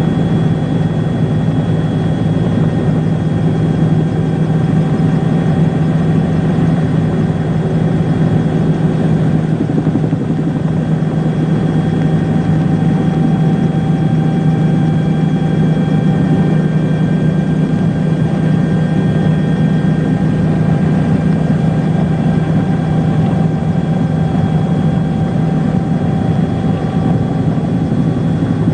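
A steady engine drone at an even pitch and level, with several held tones over it.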